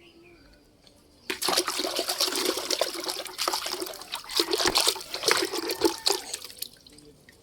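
Water splashing and trickling as a muddy plastic action figure is rubbed and rinsed by hand. It starts about a second in and dies away near the end.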